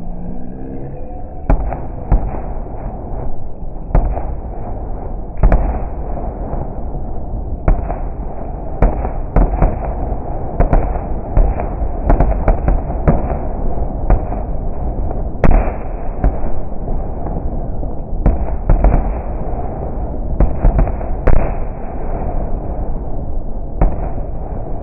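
Aerial fireworks shells going off in a dense series of bangs over a continuous low rumble, the sound slowed about eight times with the 240 fps slow-motion footage so each burst comes out deep and drawn out.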